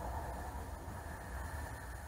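Jet boat engine heard from on board: a muffled low rumble with water hiss, easing off slightly as the boat slows.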